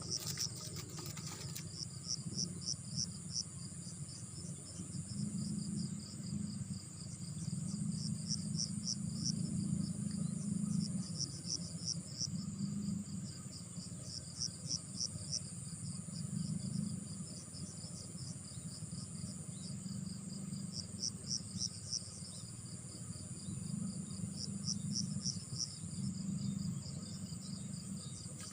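Insects calling: a steady high-pitched drone with groups of rapid chirps that come back every few seconds, over a low rumbling noise. A brief crackle right at the start.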